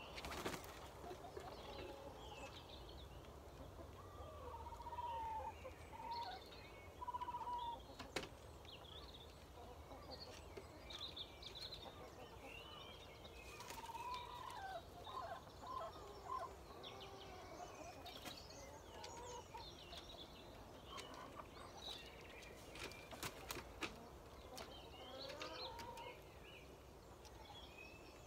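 Domestic chickens settling to roost, giving soft clucks and short drawn-out calls, with small wild birds chirping over them. A few sharp clicks, the loudest at the very start and about 8 seconds in.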